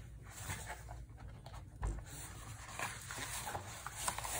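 Paper notebooks being handled and paged through: scattered rustling of pages and covers with light taps, and a soft low thump about two seconds in.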